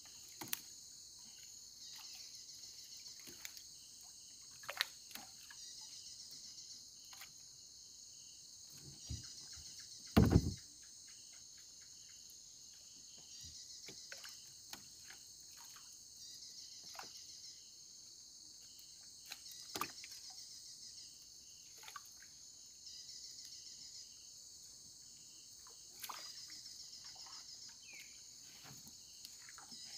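Insects chirping in short, high-pitched pulsed bursts that repeat every second or two, with scattered knocks and one loud thump about ten seconds in.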